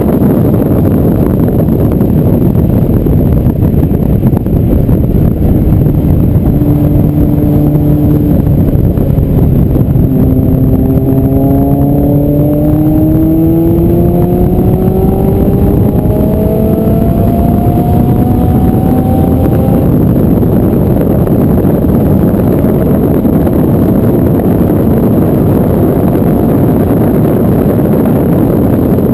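Heavy wind and road rumble on the outside of a Harper sports car at racing speed, with its engine heard underneath. About a third of the way in, the engine note climbs steadily for several seconds as the car accelerates.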